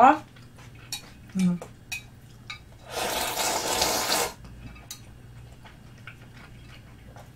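A person slurping udon noodles from a glass bowl: one long, loud slurp about three seconds in. Light clicks of chopsticks against the glass bowl come before it.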